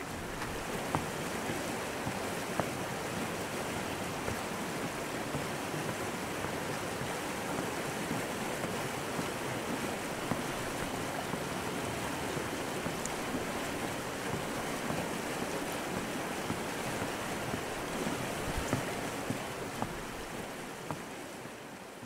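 Steady rushing of flowing stream water, an even unbroken wash with a few faint ticks, fading out near the end.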